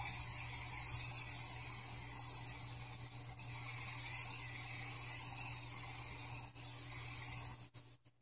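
Aerosol spray-paint can hissing steadily as a light coat of paint is sprayed on. It breaks off a few times in its last second and stops just before the end.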